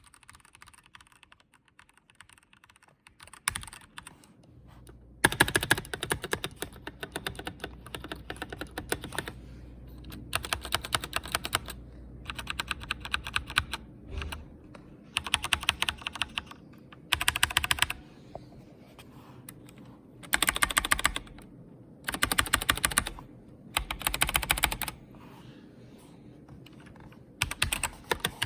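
Razer mechanical keyboard with Razer Yellow linear switches being typed on fast, in bursts of rapid keystrokes a second or two long with short pauses between. The typing is light and sparse at first and turns into a dense clatter about five seconds in.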